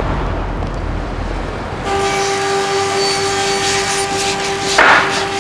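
A car driving past close by with a low rumble for about two seconds. Then joinery workshop machinery runs with a steady hum, with a short louder noise near the end.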